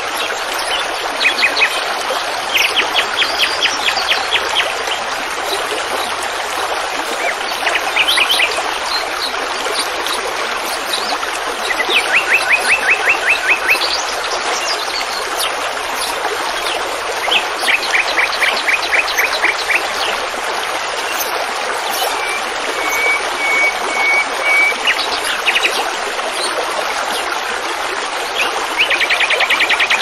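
Small songbirds singing rapid trills of evenly repeated notes every few seconds, over the steady rush of flowing water like a stream.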